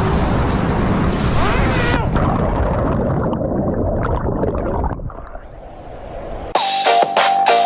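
A loud, noisy rumble with a few sliding tones in it, which turns muffled about two seconds in and fades away around five seconds. Electronic music with a steady beat starts about a second before the end.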